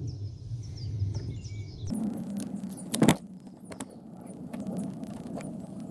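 Small clicks and taps of metal and plastic parts as a screwdriver pushes an electric motor's carbon brushes aside and the armature is fitted back into its housing, with one louder clack about three seconds in. A low hum stops about two seconds in, and birds chirp in the background.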